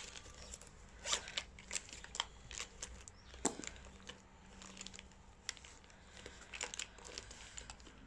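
Scattered light clicks, taps and rustles of makeup products and plastic packaging being handled, with a faint steady hum underneath.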